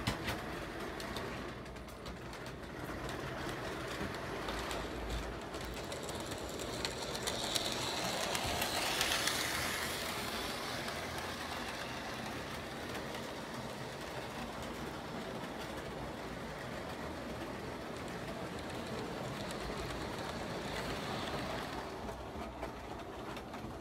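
HO scale model train running along its track: a steady rolling, whirring sound of wheels and motor, louder about nine seconds in and again near the end as a car passes close by.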